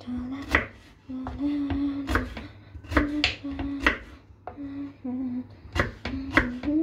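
Kitchen knife chopping turnip on a cutting board, about ten sharp knocks at uneven intervals, while a person hums a tune in short held notes.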